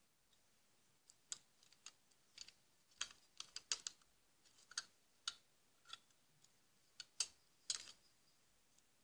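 Faint, irregular sticky clicks and crackles of glossy slime being pressed and squeezed by hand, coming from a slime video as it plays back.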